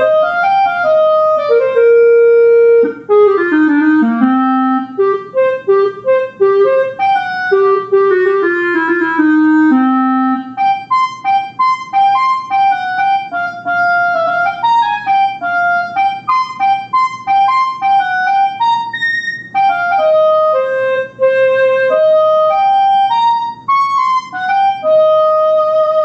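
Clarinet voice of the Songbird iPhone music app playing a tune of separate notes. It stays in the low register for about the first ten seconds, dipping to its lowest notes around four seconds in, then moves higher for the rest.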